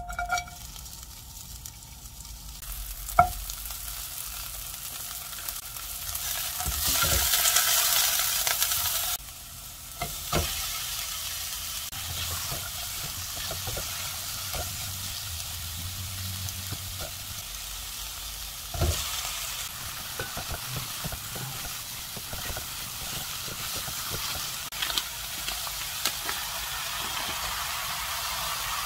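Sliced green onion, chili and then onion sizzling in hot oil in a wok while metal tongs stir them, with a few sharp clacks of the tongs against the pan. The sizzle swells loudest about a third of the way in, then settles into a steady frying hiss.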